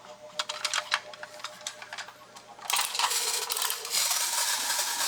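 A few sharp clicks as a windup Radar Hunter toy robot is handled and its key turned, then, about two and a half seconds in, its clockwork motor starts running with a steady gear whir as the robot walks and spins its radar. It has been given only a short wind, just to check that it works.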